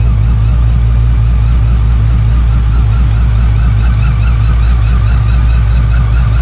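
Whipple-supercharged SRT V8 engine running steadily, a deep low exhaust note with a wavering higher whine over it.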